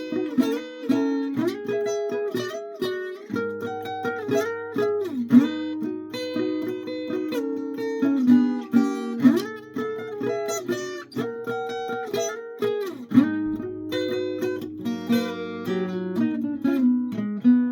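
Guitar being played: plucked notes and chords in a steady stream, with some notes sliding up or down in pitch.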